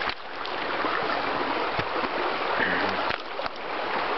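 Shallow creek water running steadily over stones, with a few short knocks about two and three and a half seconds in.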